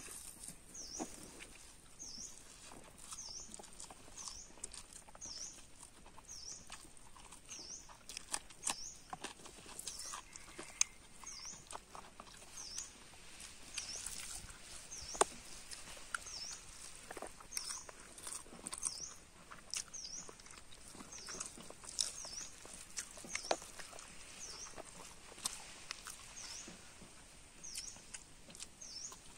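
Eating by hand from a dried palm-leaf sheath: fingers mixing rice and curry against the leaf and chewing, giving scattered clicks and small smacks. Behind it a short high chirp repeats about once a second over a faint steady high whine.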